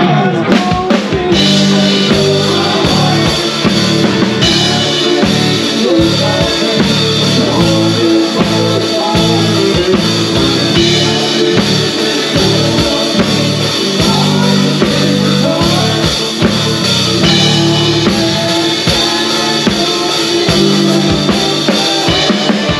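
Live country band playing, the drum kit keeping a steady beat with snare and bass drum under electric guitars, bass and keyboard.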